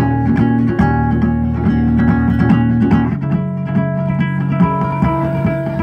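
Ukulele strummed in a steady rhythm in an instrumental break between sung lines, the chord changing about three seconds in.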